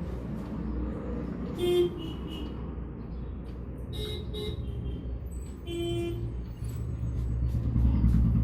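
Steady low traffic rumble with short vehicle horn toots, about three times.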